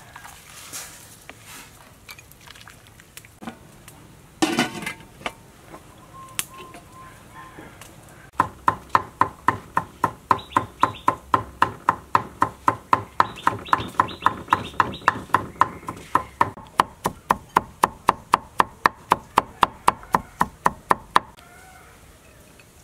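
Cleaver chopping on a thick wooden chopping block: a steady run of sharp strikes, about three a second, that starts about eight seconds in, quickens toward the end and stops a little before the end.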